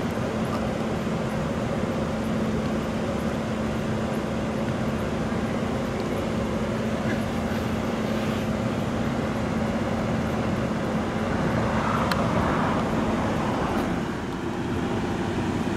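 Steady hum of a car idling, with a constant low drone, heard from inside the car's cabin.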